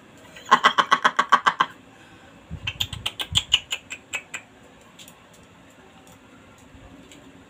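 About half a second in comes a fast run of short, pitched, chattering pulses, lasting about a second. From about two and a half seconds in comes a quicker run of light clicks with a few soft knocks, like wooden chopsticks clacking together and against the plastic sushi tray.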